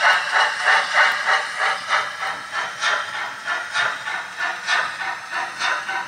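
Zimo MX645 DCC sound decoder with a YouChoos A4 sound file in a Hornby OO gauge LNER A4 model, playing steady steam exhaust chuffs through the model's small speaker as the locomotive runs. The chuffs come at about three a second and grow a little fainter near the end.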